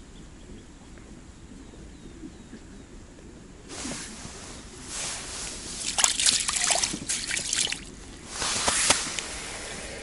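Water sloshing and dripping in an ice-fishing hole, starting about four seconds in, with sharper splashy crackles in the middle and a second loud splash near the end; the first few seconds hold only a faint outdoor hush.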